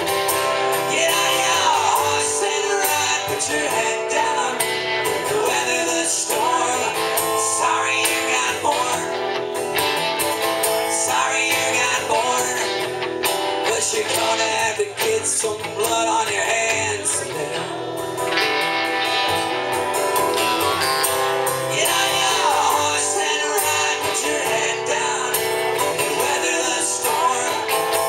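Live acoustic-electric duo: a steel-string acoustic guitar strummed and an electric guitar played over it, with a man singing.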